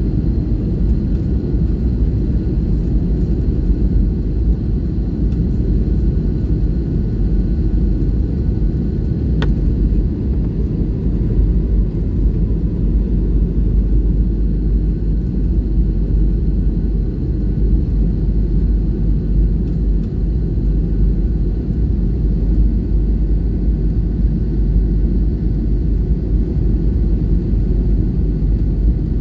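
Jet airliner cabin noise on final approach: a steady low rumble of engines and rushing air, with a faint high whine.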